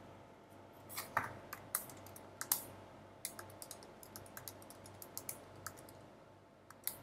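Button presses on a Casio fx-9750GII graphing calculator: a run of light, irregularly spaced plastic key clicks as an arithmetic expression is typed in.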